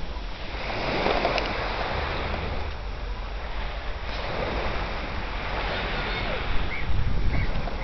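Small sea waves breaking and washing up the beach, swelling twice, with wind rumbling on the microphone.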